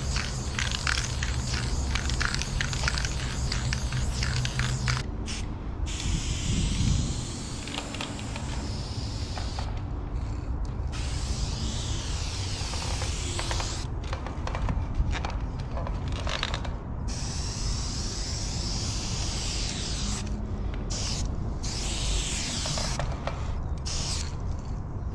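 Aerosol spray paint cans hissing in long strokes, cutting out and starting again several times between passes.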